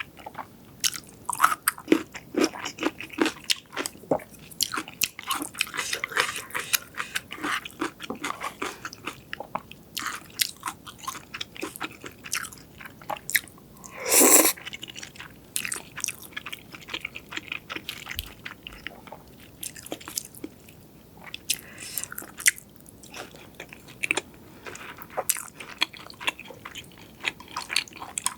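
Close-miked eating sounds: a person biting and chewing food, with irregular crunchy, crackly bites and one louder, longer burst about halfway through.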